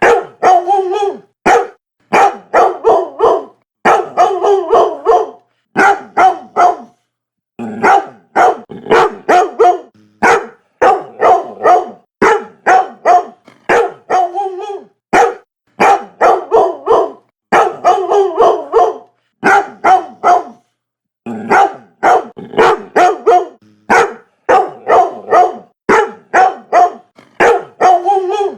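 Dog barking loudly and repeatedly in rapid runs of several barks a second, broken by short pauses.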